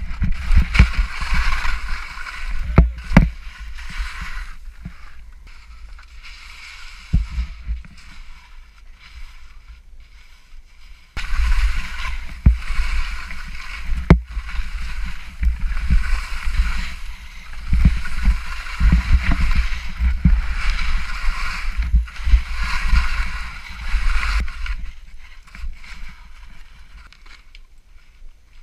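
Skis scraping and hissing over snow through a run of turns, with wind rumbling on the camera's microphone and sharp knocks of skis or poles. The scraping comes in two long stretches with a quieter pause between them.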